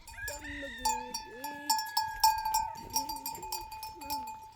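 Livestock bells clinking and ringing repeatedly on a flock, with animals bleating.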